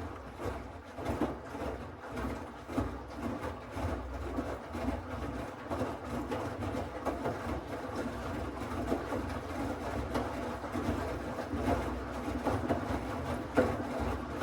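Miele W1 Active WCA 030 front-loading washing machine running: the drum turns the laundry with an uneven rumble and swishing that rises and falls, with no high spin whine.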